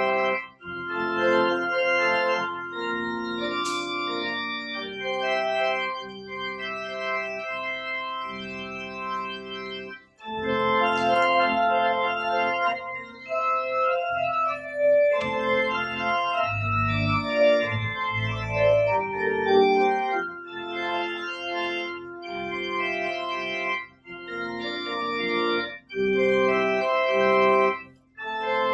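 Church pipe organ playing slow, sustained chords in phrases, with brief pauses between phrases. Deep pedal bass notes come in a little past the middle.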